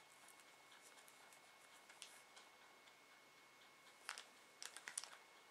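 Near silence broken by a quick cluster of small ticks and clicks about four seconds in: fingers handling thin wire and a bundle of artificial flower stamens while wrapping them with floral tape.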